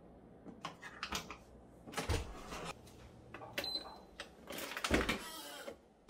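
Clicks and knocks from handling a built-in dishwasher: a few light clicks about a second in, a thud about two seconds in, a brief high tone, and a louder thud about five seconds in.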